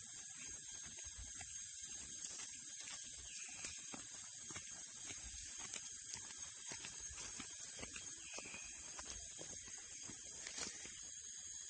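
A steady high-pitched drone of forest insects, with irregular crunching and crackling footsteps in dry leaf litter on the trail.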